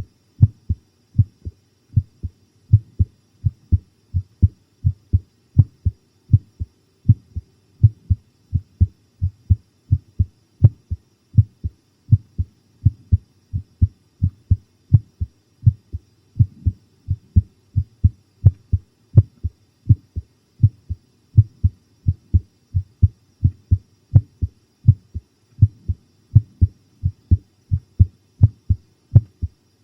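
Close-recorded human heartbeat pounding in a steady, even rhythm of low paired lub-dub thumps.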